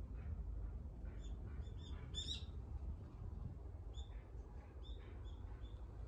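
Birds calling in the trees: scattered short, high chirps, with a brief louder cluster of notes about two seconds in, over a steady low rumble.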